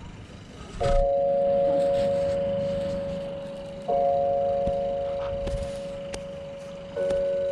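Marching band holding three sustained chords in turn, each starting sharply and slowly fading over about three seconds; the last chord is lower.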